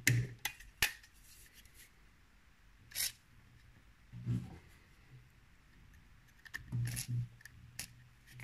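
Aerosol can of WD-40 penetrating oil sprayed through its straw onto rusted rifle buttplate screws to free them: two short hisses, about 3 s in and about 7 s in. Clicks of the can being picked up at the start and a dull knock of handling about 4 s in.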